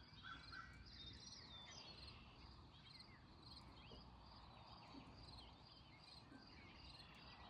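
Faint dawn chorus of several wild songbirds: overlapping chirps, slurred whistles and rapid trills of repeated notes, one call after another.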